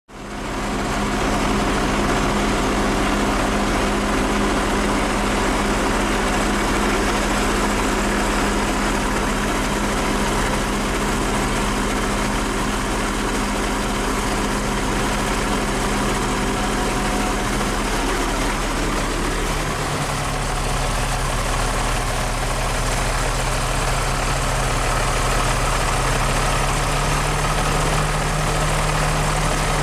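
Snow groomer's diesel engine idling steadily; about two-thirds through its note shifts slightly higher and holds there.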